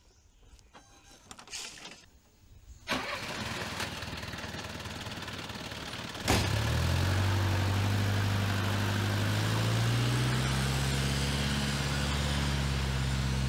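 An old four-wheel-drive jeep's engine being started. The starter cranks for about three seconds, then the engine catches about six seconds in and runs steadily at a low, even pitch.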